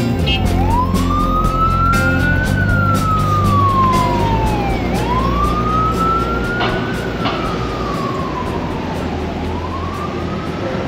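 Emergency vehicle siren wailing in slow rising-and-falling sweeps, about two full cycles, over street traffic.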